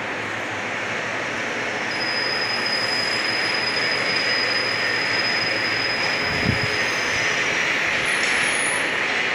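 Steady mechanical running noise with a thin high whine that holds for several seconds, and one low thump a little past the middle.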